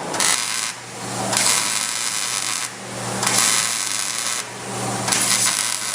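MIG welder welding steel subframe connectors: a crackling hiss in four runs of a second or so, with brief pauses between them, over a steady low hum.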